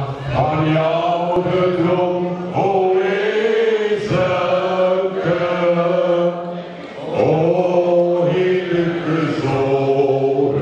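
Three men singing a song together into handheld microphones, their voices amplified through a PA, in long held notes with a brief pause about two-thirds of the way through.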